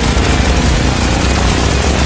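Loud background music with a heavy bass.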